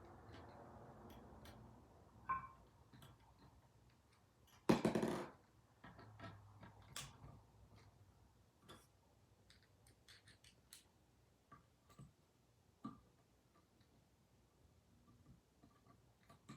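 Scattered light clicks and taps of metal vise parts and hand tools being handled during reassembly, with one louder clatter lasting about half a second around five seconds in.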